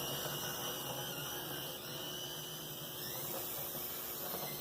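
Brass HO scale Tenshodo SD24 locomotive running with its newly installed motor: a steady high motor-and-gear whine.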